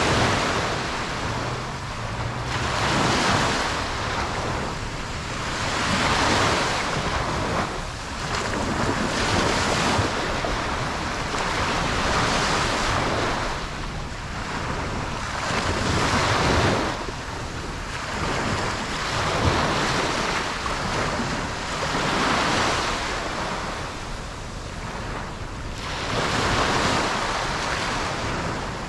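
Ocean waves breaking and washing onto a beach, each swell rising and falling every three to four seconds, with some wind in the background.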